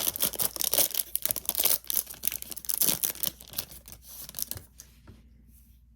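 A baseball card pack's wrapper being torn open and crinkled by hand: a dense run of crackling that thins out and stops about four and a half seconds in.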